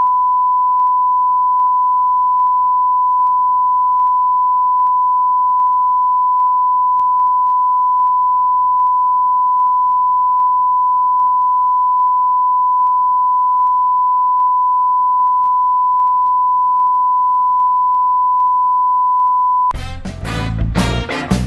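A steady 1 kHz test tone: one pure note held at constant level. Near the end it cuts off abruptly and loud swing music with brass comes in.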